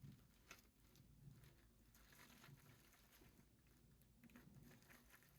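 Near silence, with a few faint, soft clicks and rustles of handling scattered through it.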